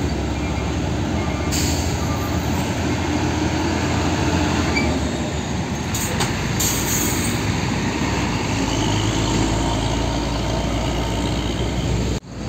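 Heavy tandem-axle diesel truck engine running as the loaded truck pulls past and drives away. There are short hisses about one and a half seconds in and again around six to seven seconds in.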